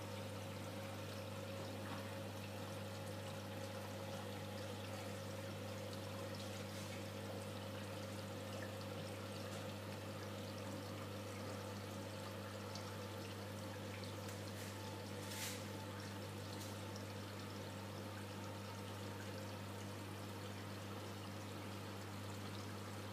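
Reef aquarium's water circulation: a steady trickle and pour of running water over a constant low hum from its pumps, with one brief click about fifteen seconds in.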